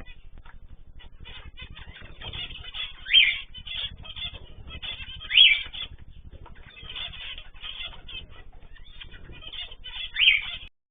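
Small cage birds chirping continuously, with a louder, upward-sweeping call three times: about three seconds in, at about five and a half seconds, and near the end.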